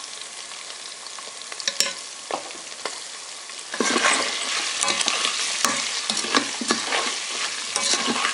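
Pork pieces sizzling in hot oil in a multicooker bowl on its frying setting, with a few light clicks. From about four seconds in it gets louder, with quick clacking and scraping as the meat is stirred with a plastic ladle.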